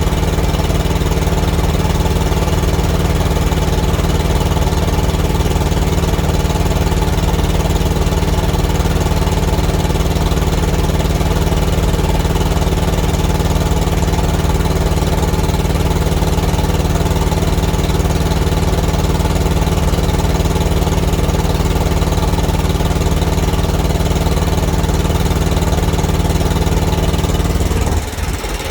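Thermo King TriPac APU's three-cylinder diesel engine running steadily, a little rough and loud, which the owner puts down to a small exhaust leak on the back side. The sound dips briefly near the end.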